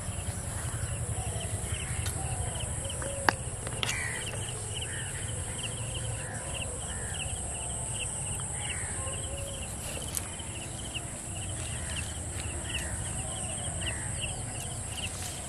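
Insects shrilling steadily, with a regular run of short chirps and scattered bird calls. A couple of sharp clicks come about three to four seconds in.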